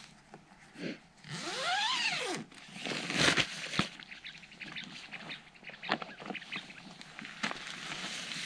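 A zipper pulled in one long stroke that rises and then falls in pitch, then a loud scuffing noise and scattered clicks and rustles of handling or footsteps.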